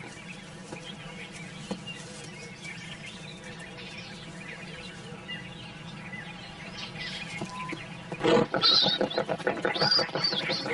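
Warthogs with piglets, quiet at first. From about eight seconds in come loud, high squeals and scuffling as the warthogs bolt from an attack.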